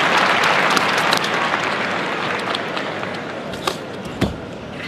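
Applause from a large arena crowd, fading out steadily. Near the end come two sharp impacts about half a second apart from the karateka's kata movements.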